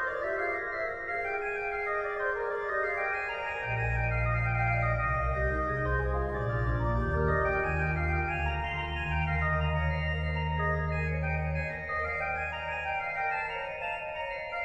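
Background organ music: slow held chords, with a deep bass line that comes in about four seconds in and drops out near the end.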